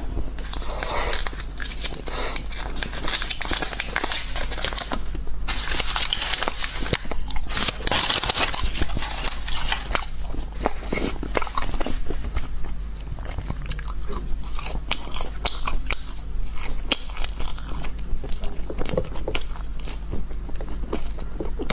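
Crunchy food being bitten and chewed close to the microphone: a dense, irregular run of crisp crunches and crackles.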